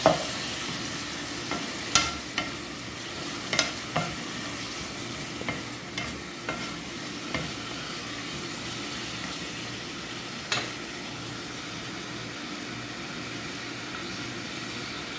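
Onion and tomato sizzling in hot oil in a metal pot while a wooden spoon stirs them, knocking sharply against the pot about ten times over the first ten seconds or so. After that only the steady sizzle remains.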